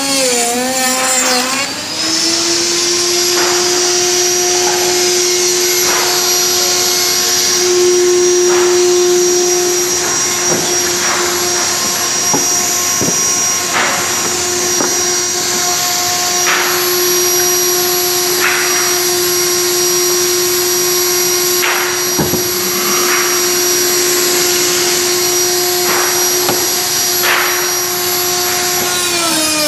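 A high-speed electric power-tool motor running with a steady whine. Its pitch climbs and settles about two seconds in and drops again at the very end. Short scraping ticks come and go over it.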